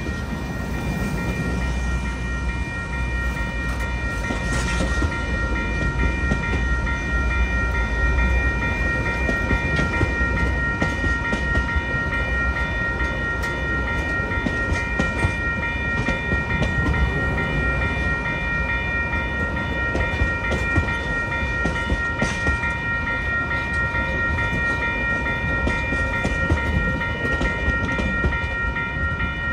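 Passenger train rolling along the track: steady rumble of wheels on rail with scattered clicks over the rail joints and a steady high whine held throughout.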